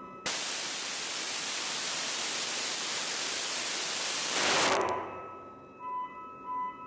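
Small rocket motor firing on a test bench: a loud, even hissing rush that starts abruptly, swells briefly near the end and dies away about five seconds in.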